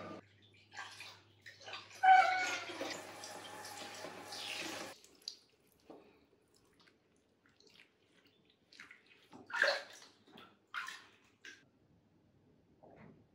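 Water splashing and pouring in a plastic bath tub while a cat is washed, for about three seconds, then cutting off suddenly. Afterwards only a few faint rustles and taps.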